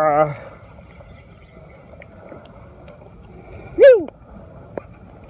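A man's voice held on one wobbling note cuts off just after the start, leaving a low wind-and-water hiss. About four seconds in comes a short, loud yelp that falls in pitch, followed by a light click.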